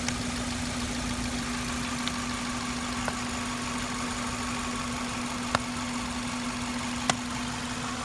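Toyota engine idling steadily under test for a misfire, which the instructor puts down to a weak ignition coil. A few sharp clicks stand out over the hum, about two seconds apart.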